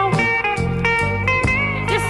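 1970s soul record played from a 45 rpm vinyl single: an instrumental passage of held guitar notes over a steady drum beat and bass.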